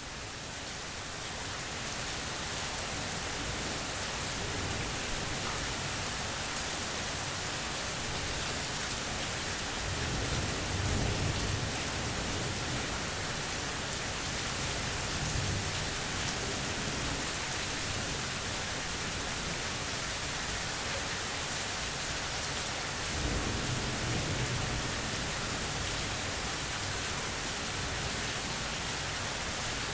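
Steady rain falling in a mild thunderstorm, fading in over the first two seconds. Low rumbles of thunder come twice: about ten seconds in and again about twenty-three seconds in.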